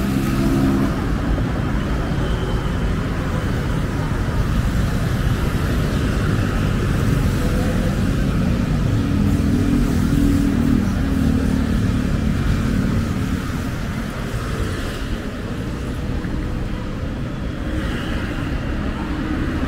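Steady road traffic: car and motorcycle engines running and passing on a busy city road, with a low rumble throughout and one engine note standing out between about nine and thirteen seconds in.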